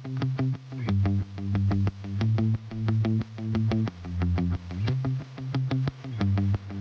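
Background music: an electronic synthesizer track with a steady beat over a repeating bass line.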